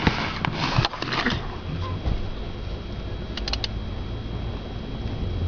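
Rustling from handling parts and tools on a steering column, then a quick run of three or four small clicks about three and a half seconds in, over a steady low hum.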